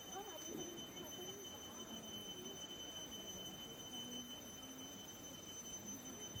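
Quiet village ambience: faint distant voices, strongest in the first couple of seconds, over two steady high-pitched tones.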